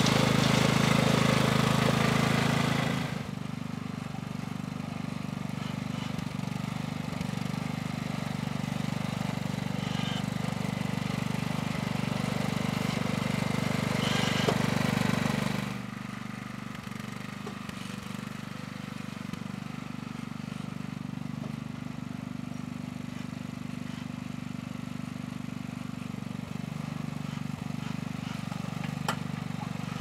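Craftsman riding lawn tractor's engine running steadily while it pushes a front plow blade. It is loudest for the first three seconds and drops abruptly about three seconds in and again around sixteen seconds.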